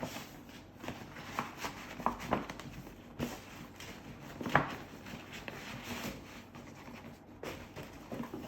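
Paper packaging being handled and opened: irregular rustling and scraping, with a sharper crackle about four and a half seconds in.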